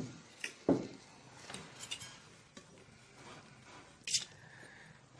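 Cutlery and tableware clinking and scraping on plates during a meal: a few short knocks in the first second, quieter scrapes after, and one sharp clink about four seconds in.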